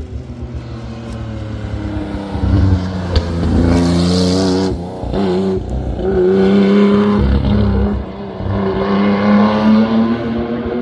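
Historic racing car engine accelerating hard past, its pitch climbing and dropping back at several upshifts.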